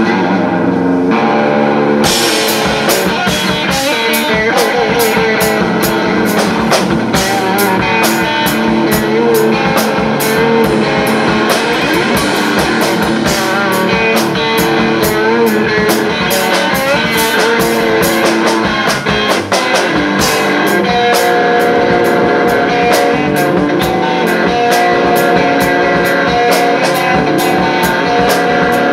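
Live rock band: an electric guitar plays alone at first, then the drum kit comes in with cymbals about two seconds in, and the two play on together.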